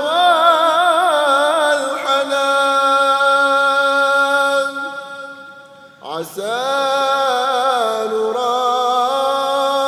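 Islamic devotional nazam chant, sung in long held notes with wavering ornaments. The phrase fades out about five seconds in and a new phrase begins about a second later.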